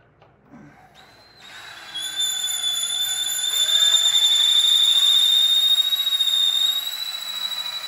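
Power drill driving a screw into a taxidermy manikin, its motor a steady high-pitched whine. The whine starts faintly about a second in, gets loud about two seconds in and eases off near the end.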